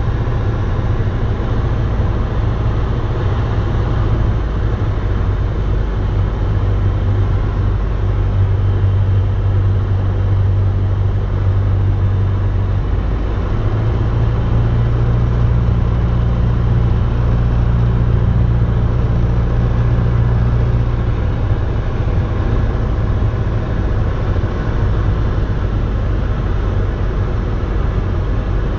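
Piper light aircraft's piston engine and propeller droning steadily, heard inside the cockpit on final approach. The engine note rises a little about halfway through and drops back a few seconds later.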